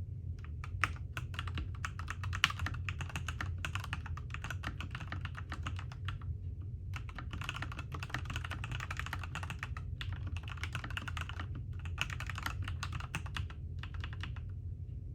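Typing on an iFlytek T8 mechanical keyboard: rapid key clicks in runs of a few seconds, broken by brief pauses.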